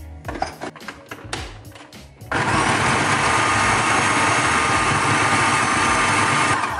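Electric food processor running, its blades chopping raw cauliflower into rice-sized bits. It starts suddenly a little over two seconds in and stops just before the end, after a few light knocks.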